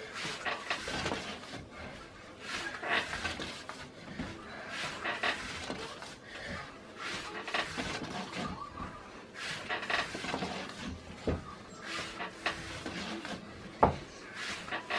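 Kitchen handling sounds of dough being worked on a board: soft rubbing and rustling with light knocks, and a sharper knock about two-thirds through and another near the end.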